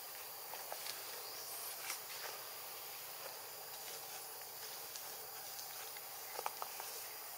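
Forest ambience: a steady high insect hum and hiss, with scattered light clicks and a short cluster of sharper clicks about six and a half seconds in.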